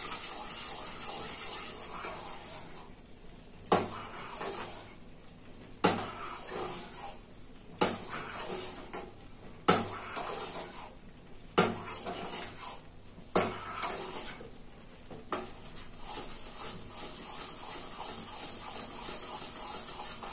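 A spoon stirring a milky sabudana (sago) and milk mixture in a stainless steel pan, knocking against the pan about every two seconds, over a steady hiss. The mixture is kept moving on low flame as it starts to thicken, so it does not stick or form lumps.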